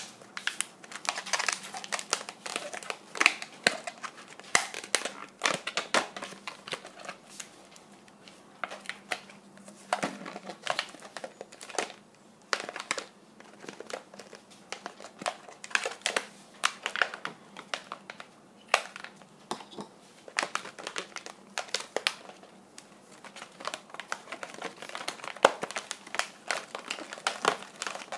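Latex modelling balloons being twisted and pressed together by hand, making many short, irregular rubbing sounds of the rubber.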